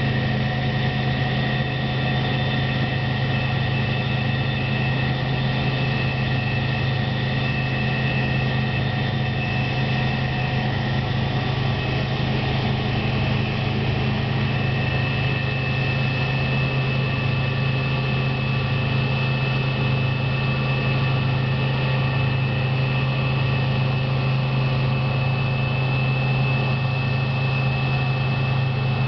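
New Holland CX780 combine harvester running steadily while harvesting wheat: a deep, even engine drone with a steady high whine above it.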